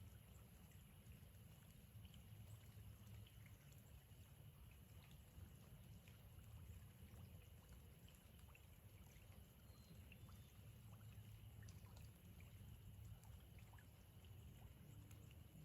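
Very quiet outdoor ambience: faint scattered ticks of dripping water over a steady low rumble.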